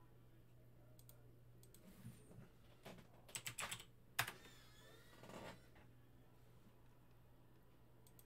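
A few soft computer keyboard keystrokes over near silence: a quick run of taps about three and a half seconds in, then one sharper click just after.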